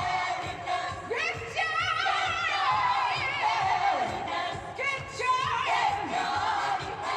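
Gospel choir singing an upbeat song with band accompaniment, solo voices with vibrato over the choir.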